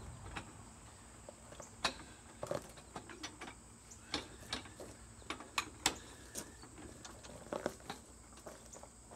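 Irregular clicks and light metallic knocks as a jack raises the rear of a Scag walk-behind mower higher, tilting it to drain the last of the engine oil.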